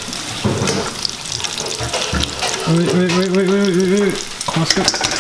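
Hot oil sizzling and crackling in a steel kadai as batter-fried chicken feet are lifted out on a slotted spoon. A person's voice holds a wavering tone for over a second about three seconds in.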